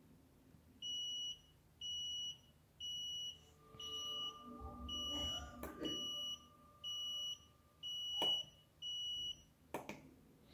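IN-12 nixie clock's alarm beeper going off at the set time: short, high-pitched beeps about once a second, nine in all, with a few sharp clicks in the second half.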